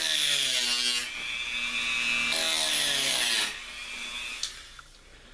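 Handheld rotary tool with a cutoff disc whining as it cuts into model railroad track, in two stretches with a short dip about a second in. It stops after about three and a half seconds, leaving a few faint clicks.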